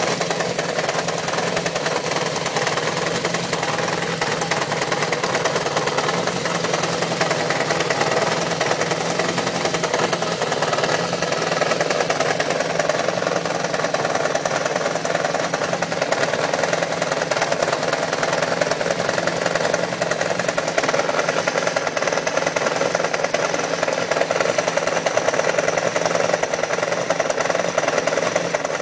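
1993 Yamaha XJ600's air-cooled inline-four engine idling steadily with a knocking noise from the engine.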